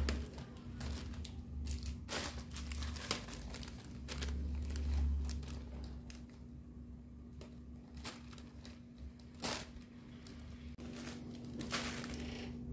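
Crinkling and rustling of a clear plastic bag and the thin printed wing sheets of a toy ornithopter as it is handled and assembled, with small irregular clicks from its bamboo sticks and plastic fittings. A steady low hum runs underneath.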